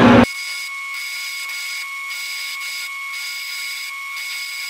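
A 3/4-inch end mill cutting into a steel plate on a milling machine: a steady high-pitched cutting whine that pulses about twice a second.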